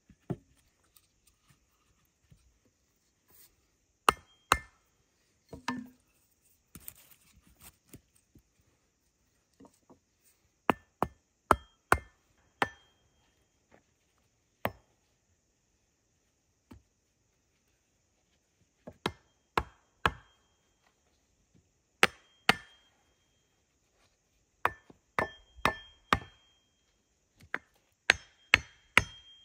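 Wood being chopped with an axe: sharp single blows, some with a short metallic ring, coming in groups of two to four with short pauses between the groups.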